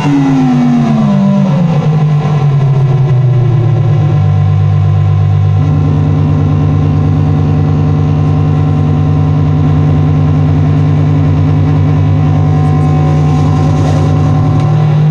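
Loud, electronically processed droning noise music played live. Falling pitch sweeps settle into a steady low drone about two seconds in. A rapidly pulsing, buzzy layer joins about five and a half seconds in and drops out near the end.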